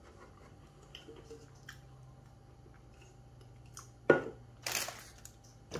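Faint small clicks over a steady low hum, then a sharp crackle about four seconds in, followed by a short rustle.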